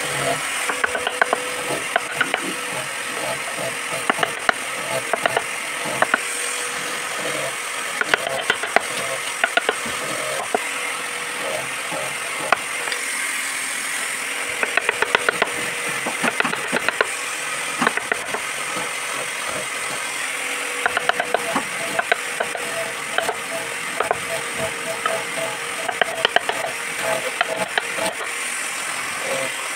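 Flat wood chisel pushed by hand through a board while carving a flower relief: irregular scraping cuts and small sharp clicks as wood chips break away, often in quick clusters.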